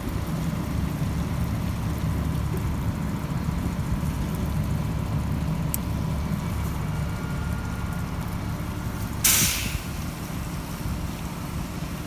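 Crash tender's engine running steadily, with a click about halfway through and a loud, short hiss of released air a little after three-quarters of the way, as the pump panel's pneumatic valve controls are worked.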